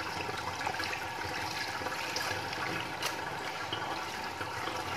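Water running steadily from a garden hose into a plastic basket, splashing over pieces of raw patin catfish as hands rub and rinse them clean.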